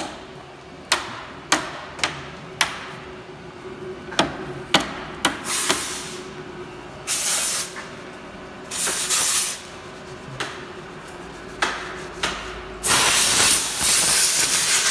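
Primer being sprayed onto a part in short hissing bursts, the longest and loudest near the end. It comes after several sharp clicks in the first few seconds, with a faint steady hum underneath.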